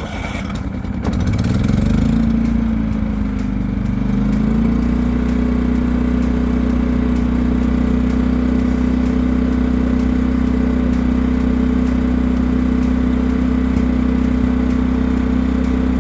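Champion 3500-watt inverter generator's small single-cylinder four-stroke engine starting by remote electric start after sitting unused for a long time. Its speed hunts up and down for the first few seconds, then settles into a steady run.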